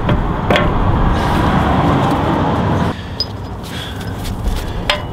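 Steady rushing noise that cuts off suddenly about three seconds in, with a few light metal clicks as a new front wheel bearing hub is handled against the swivel hub.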